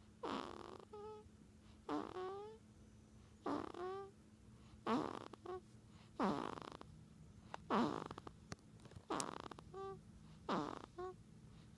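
A sleeping pet snoring, with a noisy breath about every second and a half. Most breaths are followed by short, squeaky, whistling notes that bend up or down.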